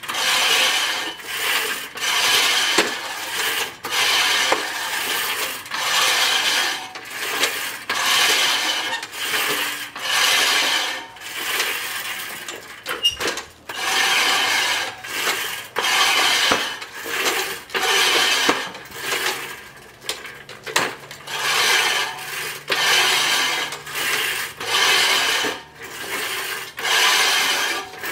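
Sun Joe manual reel mower pushed through tall grass in repeated strokes about once a second, its spinning reel blades whirring and snipping grass with a ratcheting clatter on each push.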